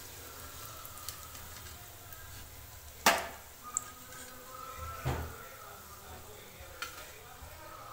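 A perforated steel skimmer knocking against a steel kadai as deep-fried vadas are lifted from hot oil: a sharp metallic clank about three seconds in, a duller knock around five seconds, and a few lighter clicks, over faint sizzling of the frying oil.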